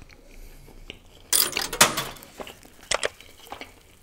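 Butter naan being torn apart by hand: a crackly rip about a second and a half in, then a few short crisp snaps of the bread.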